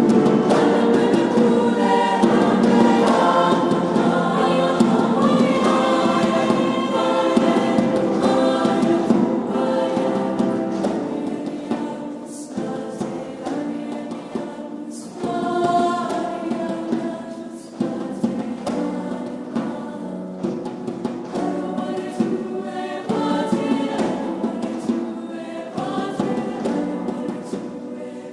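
A choir singing in several parts, loud and full at first, then growing softer, with a couple of brief breaks about halfway through.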